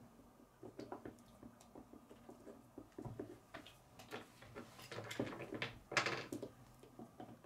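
Plastic K'nex pieces clicking and knocking as they are handled and pushed together on a wooden table, with a louder clatter about six seconds in.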